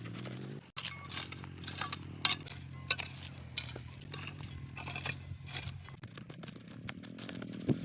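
Metal tools clinking and scraping against stones, in many short irregular strokes, over a steady engine hum that fades about six seconds in.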